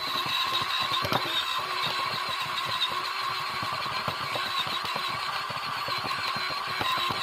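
RC car driving, its motor and drivetrain whining steadily in a high pitch, with a constant patter of small clicks and rattles from the car and its wheels.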